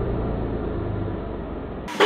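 Lamborghini Aventador LP700-4's V12 running through an RES titanium exhaust, holding a steady note that slowly fades. Just before the end it cuts abruptly to a louder, brighter burst of revving.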